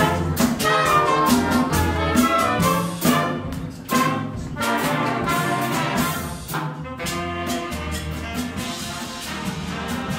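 Latin fanfare band playing live: saxophones, trumpet and other horns over congas and drum kit, with percussion strikes keeping a steady beat.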